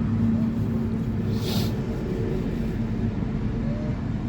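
Steady low mechanical hum of a running machine, with one short hiss about one and a half seconds in.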